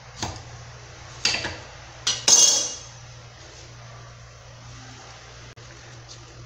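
Kitchen knife cutting through a lime on a hard surface: four sharp knocks within the first two and a half seconds, the last the loudest with a short metallic ring.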